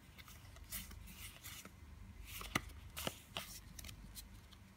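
Faint rustling and flicking of Magic: The Gathering cards being slid apart and sorted by hand, with scattered soft clicks of card against card, the clearest a little past the middle.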